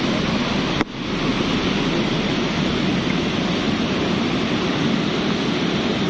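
Semeru lahar (volcanic mudflow) rushing through a narrow rocky gorge: a loud, steady rush of churning water and debris. The sound cuts out for an instant about a second in, then carries on.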